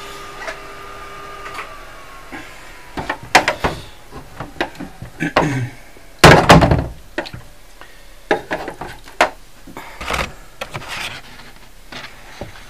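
Darkroom developing tray being handled to agitate a print test strip in lith developer: irregular knocks and clunks, the heaviest thump about six seconds in.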